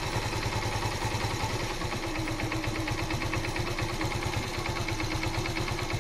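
Yamaha FZ's 153 cc air-cooled single-cylinder four-stroke idling steadily with an even run of firing pulses, heard close at the cylinder, while its carburettor mixture screw is set to where the idle speed holds stable.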